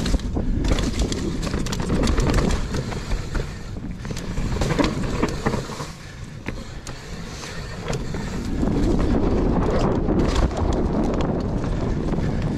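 GT Force Pro mountain bike riding down a dry dirt trail: tyres rolling over dirt and dry leaves, wind rushing on the microphone, and the bike rattling and clicking over bumps. It eases off for a moment about halfway through, then picks up again.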